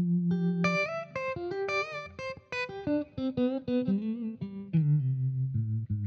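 Stratocaster-style electric guitar played through a J. Rockett Revolver vibe/boost pedal: a single-note run that climbs to high notes, some with a slight wavering vibrato, then steps down to low notes near the end.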